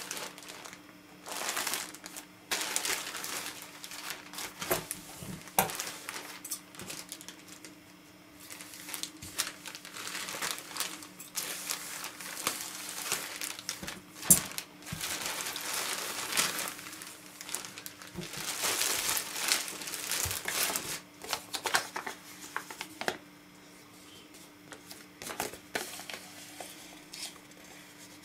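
Thin plastic courier mailer bag crinkling and rustling in irregular bursts as it is handled and opened. There is a sharp snap about 14 seconds in, and the crinkling thins out to a few light rustles near the end.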